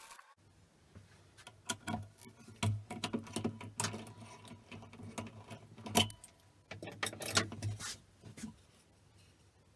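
Irregular clicks, knocks and rattles as a woodturning lathe's chuck is loosened with its metal tommy bar and a wooden bowl is handled on the stopped lathe, the sharpest knock about six seconds in. A faint steady low hum runs underneath.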